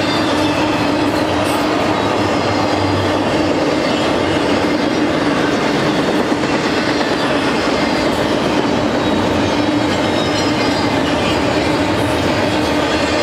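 BNSF double-stack intermodal well cars rolling past: a loud, steady rumble and rattle of steel wheels on rail, with a constant droning tone running through it.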